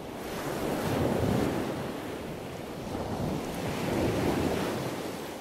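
Ocean surf: waves breaking and washing in as a steady rush that swells twice, about a second in and again near four seconds.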